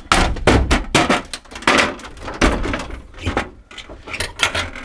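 Folding aluminium ramp clanking and rattling as it is lifted and stowed inside a work van: a run of irregular metal knocks, the loudest near the start.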